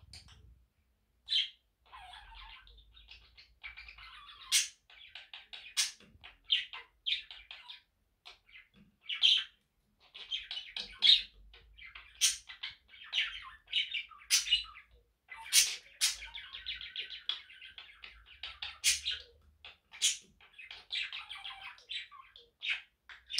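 Budgerigar warbling: a long, scratchy, chattering song broken by frequent sharp high chirps, starting about a second and a half in and pausing briefly now and then.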